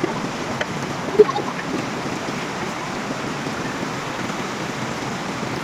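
Steady rush of a shallow, fast mountain river running over rocks and rapids, with a brief high voice about a second in.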